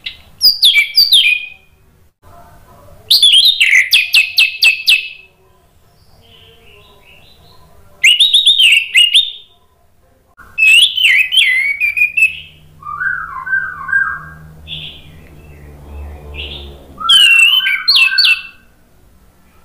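Orange-headed thrush (anis merah) singing: loud bursts of rapid, varied whistled notes mixed with sharp clicks, about five phrases with short pauses between them, and a softer, lower-pitched phrase in the middle.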